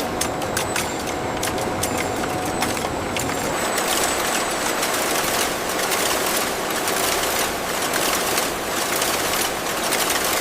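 Factory machinery running steadily: a dense clattering noise with frequent sharp clicks.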